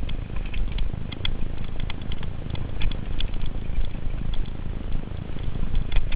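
Mountain bike riding fast down a dirt singletrack: a steady low rumble of wind buffeting the microphone and tyres on the trail, with irregular sharp rattles and clicks from the bike over the bumps.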